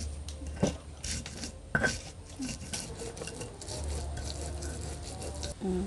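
Stone pestle grinding fried peanuts and chilies in a stone mortar (Indonesian ulekan and cobek) to make pecel peanut sauce: irregular knocks and gritty scraping of stone on stone as the ingredients are crushed into a paste.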